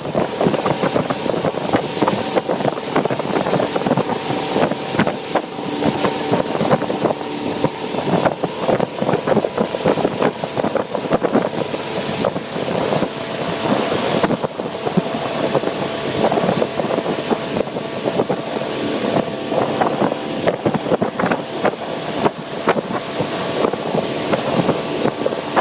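A motorboat engine running steadily while the boat is under way, with wind buffeting the microphone and water rushing past.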